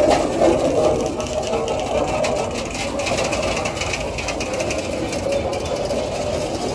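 Loaded freight wagons rolling slowly past: steady rumble of steel wheels on rails with continuous rattling and clicking from the cars.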